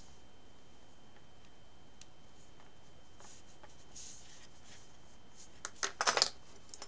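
Hands working soft polymer clay with faint light ticks, then a quick clatter of small clicks about six seconds in as a wooden sculpting tool is set down on the work table and another tool is picked up from among the others.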